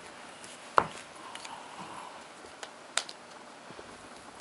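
Two sharp clicks about two seconds apart, the first and louder about a second in, with a few fainter ticks over a faint hiss.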